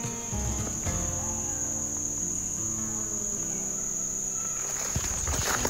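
Steady, high-pitched drone of insects singing in summer woods, with soft background music notes underneath.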